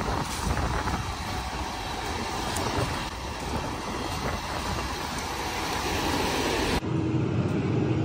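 Diesel engines of silage-chopping machinery running close by, a steady noise. About seven seconds in it switches abruptly to the inside of a tractor cab, where the engine is a muffled hum with a steady held tone.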